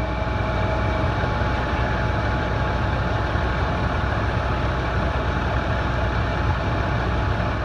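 Fire department ladder truck's diesel engine running steadily, with a faint steady whine over it.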